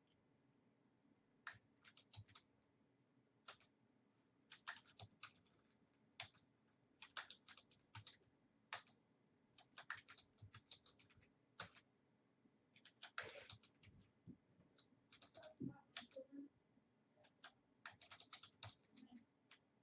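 Faint computer keyboard typing, keystrokes coming in irregular bursts with short pauses between.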